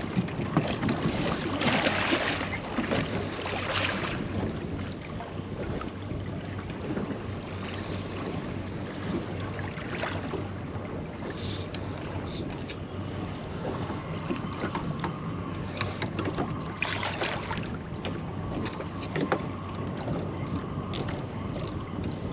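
Wind buffeting the microphone and water lapping and slapping against a small boat's hull, in uneven gusts and swells.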